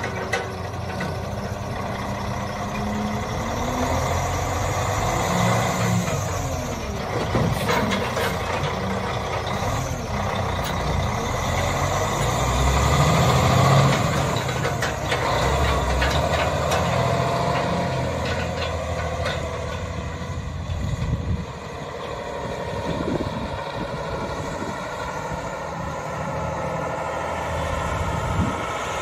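Cummins ISX15 diesel engine of a Kenworth T800 log truck pulling away and driving off, the revs rising and falling several times. It is loudest about halfway through and fainter in the second half as the truck moves away.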